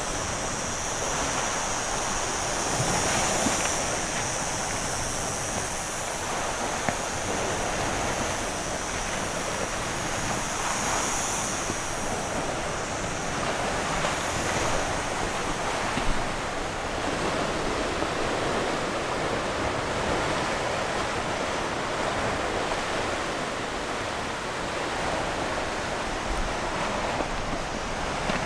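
Sea waves washing onto the shore of a cove, rising and falling in swells every few seconds.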